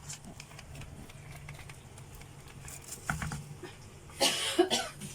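A person coughs: a short cough about three seconds in, then a louder one near the end, over a steady low hum and faint kitchen clicks.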